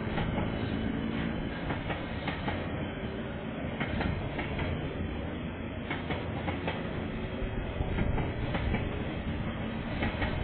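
Freight train's wagons rolling steadily past, a continuous rumble with irregular clicks and clanks from the wheels on the rails.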